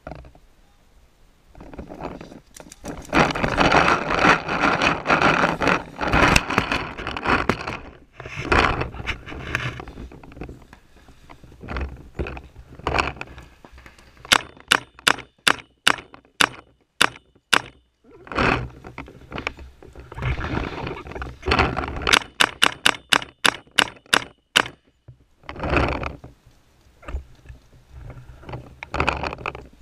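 Paintball marker, a Macdev Droid, firing two quick strings of shots, several a second: one near the middle and one about two-thirds through. Bursts of broad noise come between them.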